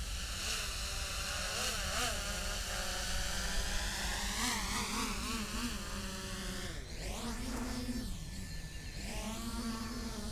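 Multirotor drones' electric motors and propellers buzzing in flight, the pitch rising and falling with throttle changes. About seven seconds in the sound sweeps as a drone passes close overhead.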